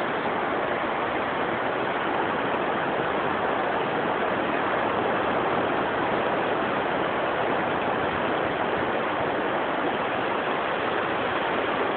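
Steady rushing noise of ocean surf, even and unbroken, with no single waves or knocks standing out.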